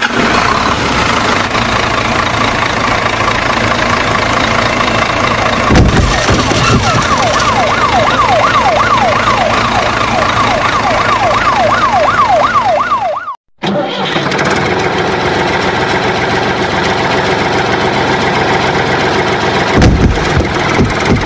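Truck engine sound running steadily, loud and continuous. From about six to thirteen seconds in, a fast siren sweeps up and down over it. The sound cuts out briefly at about thirteen seconds, then a steady engine sound carries on.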